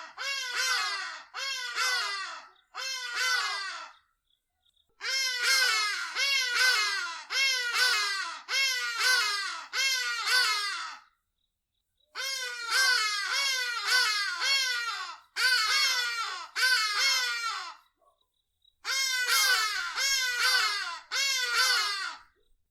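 Hadeda ibis calling: loud, harsh calls, each dropping in pitch, given in four bouts of four to six calls with short pauses between.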